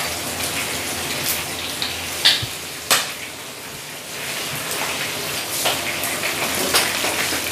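Hot oil sizzling and crackling as galunggong (round scad) fry in a pan, with sharper pops about two and three seconds in.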